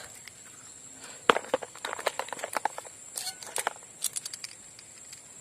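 Steady high insect drone, with a string of irregular sharp clicks and rattles from handling fishing tackle.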